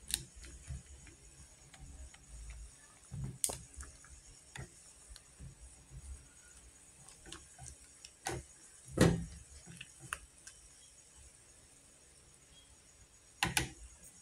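Wooden chopsticks knocking and tapping against an aluminium pot while instant noodles are stirred, a handful of separate clicks with the loudest about nine seconds in.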